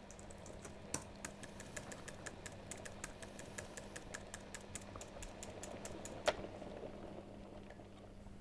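Typing on a laptop keyboard: a quick run of key taps, about three or four a second, ending with one sharper tap about six seconds in, over a faint steady hum.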